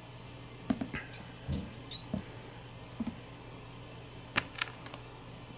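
A white feeder mouse giving several short, very high-pitched squeaks between about one and two seconds in. Scattered light clicks and knocks of handling run through the rest, the sharpest near the end.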